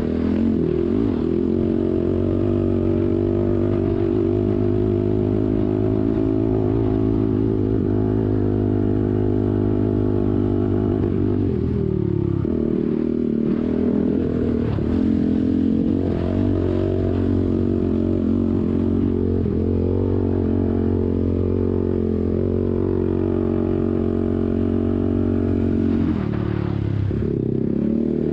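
ATV engine running steadily under throttle while riding. The pitch drops and climbs back about twelve seconds in, again around fifteen seconds, and near the end as the throttle is eased off and reapplied.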